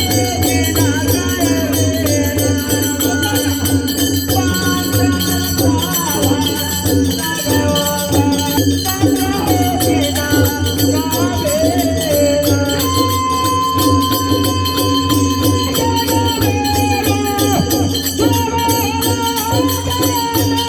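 Music: a melody with singing over a steady low drone and busy shaken percussion.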